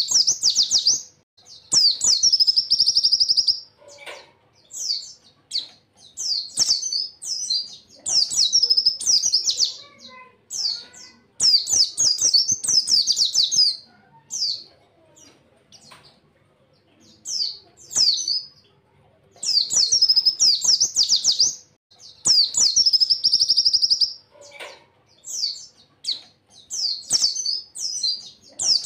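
Pleci (white-eye) singing in repeated bursts of high, fast twittering phrases, many ending in a rapid trill, with short pauses between them.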